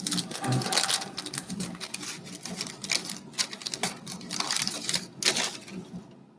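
Crackly paper wrapper of a 1989 Bowman baseball card pack being torn open and crinkled by hand, a dense run of rapid crackles that stops about six seconds in.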